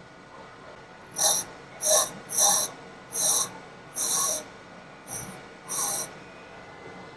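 Diamond dresser dressing the flat face of a running tool and cutter grinder's grinding wheel: seven short scratchy hisses, each a pass of the diamond across the wheel, less than a second apart. A steady machine hum runs underneath.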